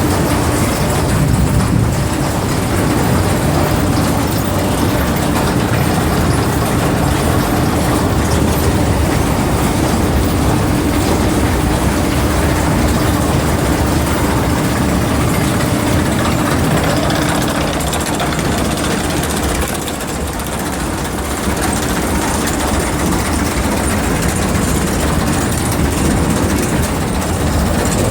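Komsilaj silage packing machine running steadily while packing cotton: a continuous heavy machine drone with a steady hum, easing off slightly for a moment about twenty seconds in.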